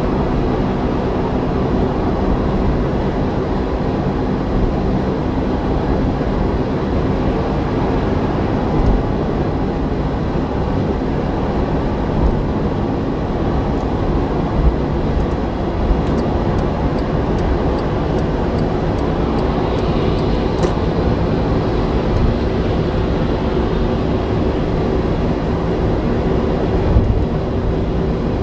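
Car driving at motorway speed, heard from inside the cabin: a steady drone of engine, tyres and wind.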